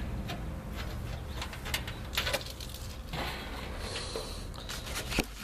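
Light knocks and clatter of things being handled and set down, over a steady low outdoor rumble. A bird coos faintly a couple of times.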